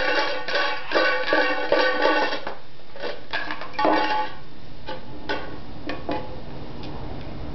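A cap banged against a metal can, each strike ringing briefly. The strikes come two or three a second at first, then more sparsely, and stop about six seconds in.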